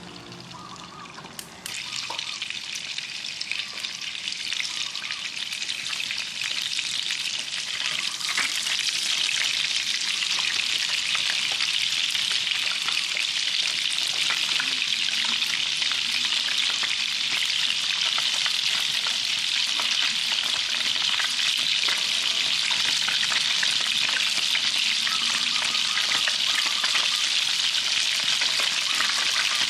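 Food sizzling in hot oil in a pan, starting suddenly about two seconds in, growing louder, then holding a steady frying sizzle, with scattered clicks of stirring.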